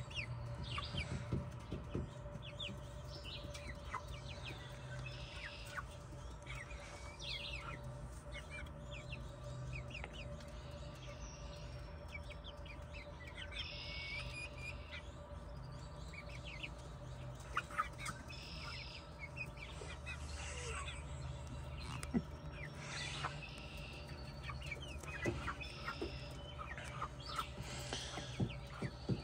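Backyard hens clucking and calling quietly as they peck at cranberries, with scattered short clicks, over a faint steady hum.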